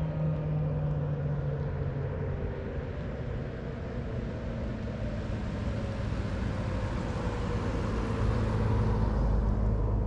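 Federal Signal 2001-SRN outdoor warning siren slowly winding down, its tone falling and fading. A passing road vehicle swells in a rush of noise toward the end.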